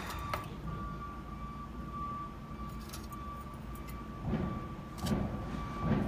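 Light clicks and rustling of plastic parts and wires being handled while fitting an electric skateboard's motherboard, more of them about four to five seconds in. Underneath runs a steady low rumble and a faint, steady high tone.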